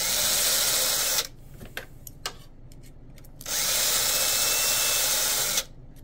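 Small power drill spinning a tapered file in reverse against the cut end of a brass stuffing tube, deburring and cleaning it up. It runs in two bursts, the first about a second long and the second about two seconds, starting a few seconds later. Each burst opens with a short rising whine as the motor spins up, and a few light clicks fall between them.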